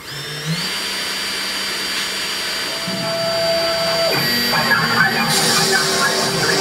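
SainSMART Genmitsu PROVerXL 6050 Plus CNC router starting its first test cut: the spindle motor spins up within the first second to a steady high whine, with lower motor hum as the machine moves. About four seconds in, the spiral end mill plunges into the MDF board and a rougher cutting noise joins the whine.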